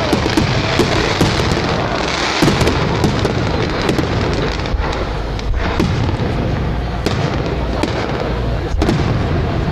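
Fireworks display: steady dense crackling with many sharp pops and a few louder bangs.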